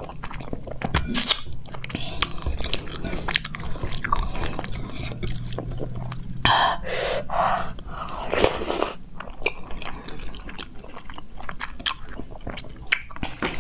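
Close-miked chewing and wet mouth sounds of a person eating fried rice in Manchurian gravy by hand, with lip smacks and soft clicks. A few louder bursts come in the middle.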